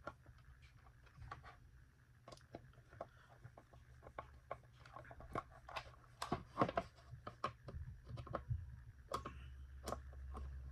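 Irregular small clicks and taps of a hand screwdriver and plastic parts as screws are driven into a vacuum cleaner's plastic headlight cover, coming thicker about halfway through.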